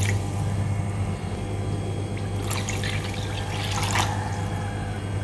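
Water poured in a thin stream from a drinking glass into a metal wok of thin flour-and-coconut-milk batter, trickling and splashing into the liquid. It briefly grows louder twice, about two and a half and four seconds in.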